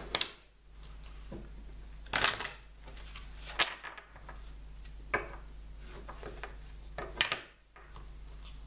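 A deck of tarot cards being shuffled by hand: a handful of short papery rustles and snaps, about five of them spread over several seconds.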